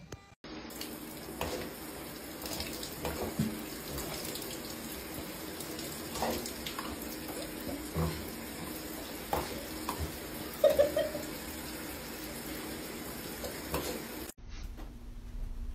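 Water running steadily, like a tap filling a sink or tub, with a few short knocks and a brief louder sound about eleven seconds in. It starts just after the beginning and cuts off abruptly a second or so before the end.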